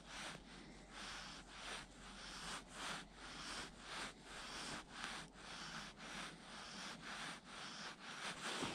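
Fly line being stripped in by hand on the retrieve: short rubbing swishes of line through the fingers and rod guides, about twice a second.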